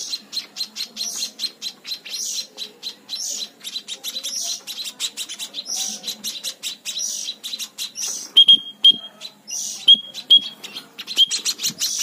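Young munias (emprit) giving rapid, continuous begging chirps while being hand-fed from a syringe. From about eight seconds in, clearer, sharper short call notes, some in pairs, join the chirping.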